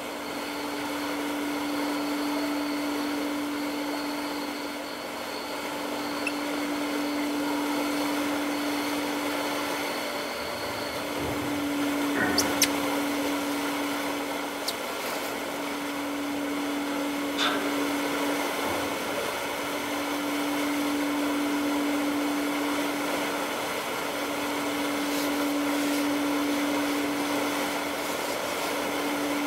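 Steady machinery hum of the MS Fram expedition ship under way: a constant low drone under an even hiss that swells and fades slowly. A few short sharp clicks come about midway.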